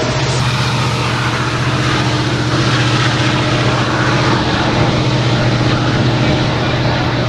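Union Pacific diesel locomotive engines running with a steady, loud low drone and a constant hum.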